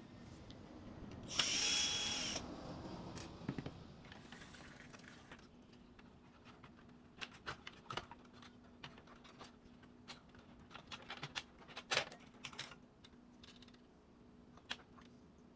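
Electric screwdriver runs for about a second with a steady whine, then scattered light clicks and taps as printer parts and screws are handled.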